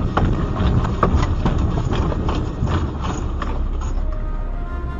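Dashcam audio of a car being shaken by a strong earthquake: a loud low rumble with irregular knocks and rattles, many in quick succession. Music fades in near the end.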